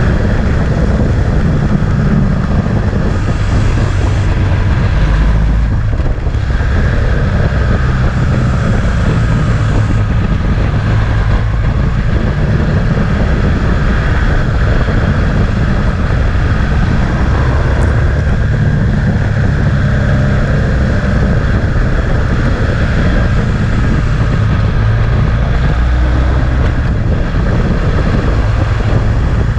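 Heavy wind rumble on the microphone of a camera riding on a moving motorcycle, with the motorcycle's engine running steadily underneath.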